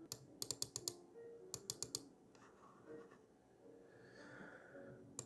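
Light computer clicks in quick runs: one at the start, a rapid burst of about six within half a second, four more a second later, and a last one near the end. They come as the photo editor's zoom control is clicked down.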